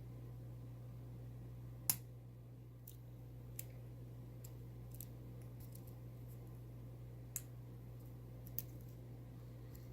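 Lock pick and tension wrench working inside an antique Yale pin-tumbler padlock: sparse, irregular small metallic clicks, the sharpest about two seconds in, over a steady low hum.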